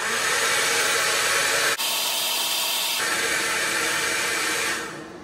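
Hand-held hot-air blower running with a steady rushing hiss, blowing heat onto the battery's NTC temperature sensor to trip the BMS high-temperature charge protection; it stops shortly before the end.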